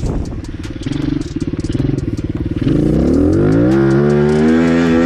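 Pit bike's single-cylinder engine idling with a couple of light throttle blips, then opened up a little past halfway, the revs climbing steadily and held high as the bike accelerates.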